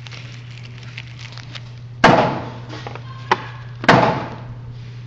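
Two gunshots, about two seconds in and nearly two seconds apart, each with a short echoing tail, over a steady low hum.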